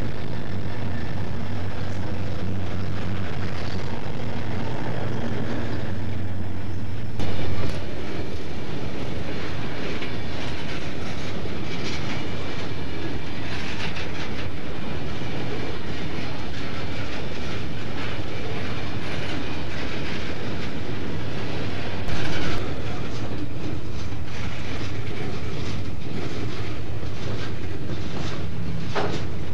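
Diesel freight locomotives passing close by, their engines droning, and then about seven seconds in a long string of freight cars rolling past, wheels clattering over the rail joints.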